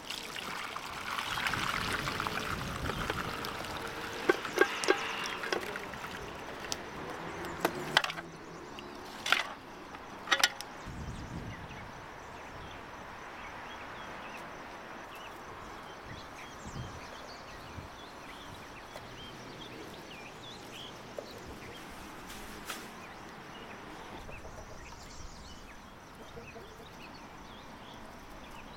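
Broth poured from a pot into a wooden bowl, a splashing stream for the first several seconds. A few sharp knocks follow, then quiet outdoor ambience with faint chirping.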